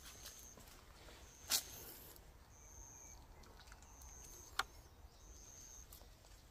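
Faint outdoor quiet with a small bird repeating a short, thin, high steady note about every second and a quarter. Two sharp crunches, about one and a half and four and a half seconds in, from footsteps on dry leaves and grit.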